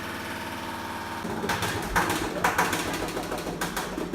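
Malfunctioning washing machine: a steady motor hum, then from about a second in loud, irregular knocking and rattling, the sound of a machine close to failing that also leaked.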